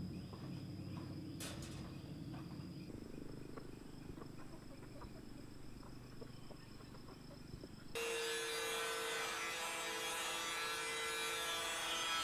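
Insects trilling steadily over quiet rural ambience with scattered small ticks. About two-thirds of the way in, the sound switches abruptly to a much louder steady hiss with a constant low hum running through it.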